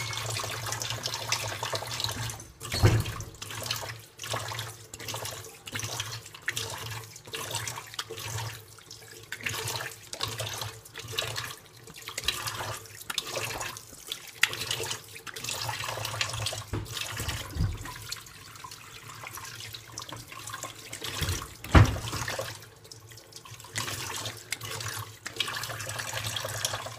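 Tap water running into a sink with repeated splashing as water is scooped up and splashed onto the face during face washing. Two louder thumps, a few seconds in and again about four-fifths through.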